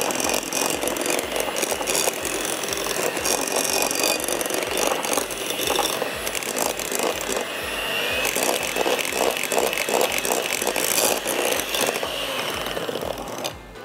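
Electric hand mixer running with its beaters in a glass bowl, whipping a cream cheese and sugar mixture: a steady motor whir that cuts off near the end.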